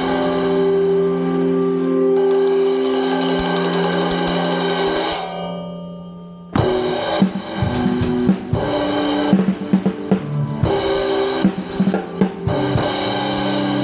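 Acoustic drum kit played with sticks, with cymbal and drum strokes over sustained electronic chord tones. The music fades out a little over five seconds in, pauses briefly, then starts again with a sharp hit followed by drum strokes and held tones.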